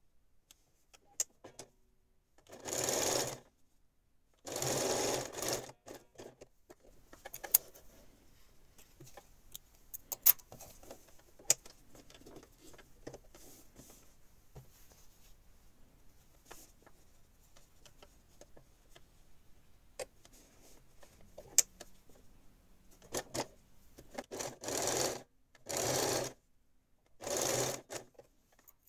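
Small domestic electric sewing machine stitching fabric patches onto terry towelling in short runs: two near the start, then a long pause of quiet fabric handling with a few sharp clicks, then four quick runs near the end.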